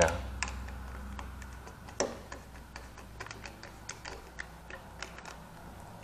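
Screwdriver turning and tightening the brass terminal screw on an electrical outlet: scattered small metallic clicks and ticks, with a sharper click about two seconds in.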